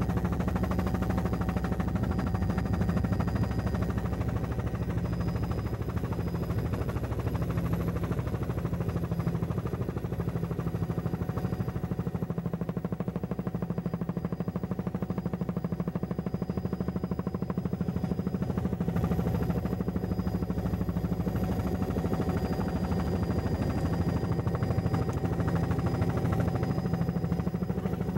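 Helicopter rotor and engine noise heard from on board, a steady drone with a fast pulsing beat.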